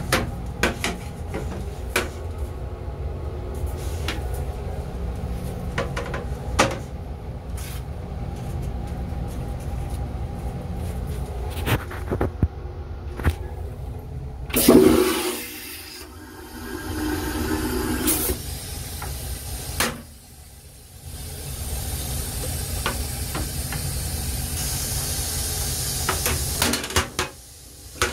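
Rail-car toilet on an LIRR M3 train being flushed: a loud whoosh about halfway through, then a couple of seconds of steady hum as the flush runs, and a hiss later on. Before the flush there is a steady low rumble of the moving car with scattered knocks and clicks.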